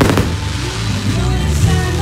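Music with steady sustained bass notes, and a couple of sharp firework bangs right at the start.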